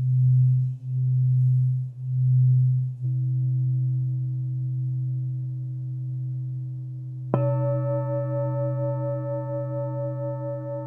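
Alchemy crystal singing bowls for the root chakra: a low hum swells and dips about once a second, then holds steady. About seven seconds in, a bowl is struck, adding a bright ringing with several higher tones and a fast wobble over the hum.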